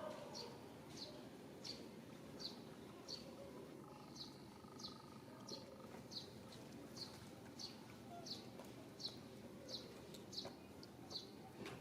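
A bird repeating one short, high, falling chirp about every two-thirds of a second.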